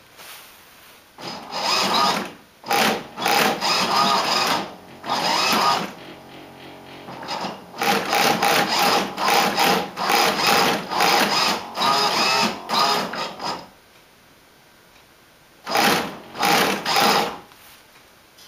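Radio-control servo driving a model biplane's aileron back and forth, whirring in repeated short bursts with brief pauses between. A fainter steady hum sits between the bursts about six to seven seconds in. There is a quiet stretch near the end before two last bursts.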